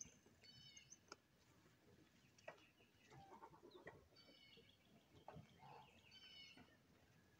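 Faint chickens calling, a few short calls a couple of seconds apart, with a few faint clicks, over near silence.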